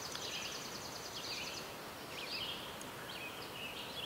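Faint birds chirping over a steady background hiss: a fast, high trill during the first second and a half, then scattered short chirps.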